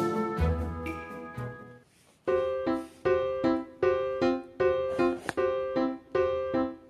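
Background music: one tune fades out, there is a short break about two seconds in, then a new tune of evenly paced, repeating notes begins.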